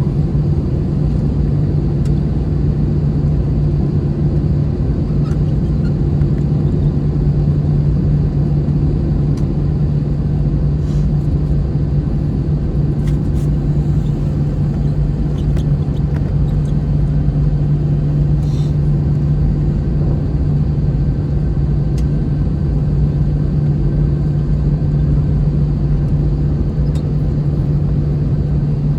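Steady cabin drone of an Airbus A321-211 in flight: the CFM56 turbofan engines and airflow make a loud, even rumble with a constant low hum.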